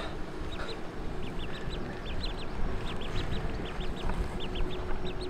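Ducklings peeping over and over, short high arched peeps at about four a second, often in twos and threes.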